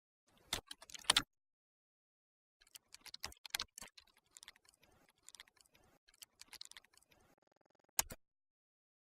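A series of small, irregular clicks and taps, with a sharper single click near the end.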